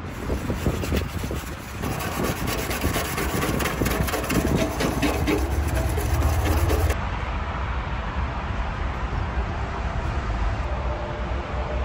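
Small stiff brush scrubbing dry grime off the round reflector of a metal road sign in quick back-and-forth strokes. About seven seconds in the scrubbing stops and only steady outdoor background noise remains.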